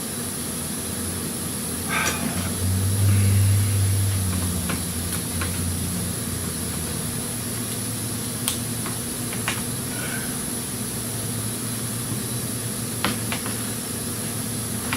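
A steady low mechanical hum, louder for a couple of seconds near the start, with a short scraping rustle just before it and a few sharp metallic clicks later on, like hand tools and fasteners being handled.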